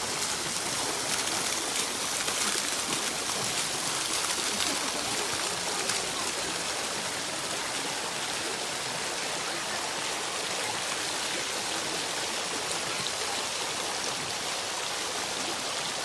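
Fountain jets spraying into a koi pond, a steady rush and splash of falling water.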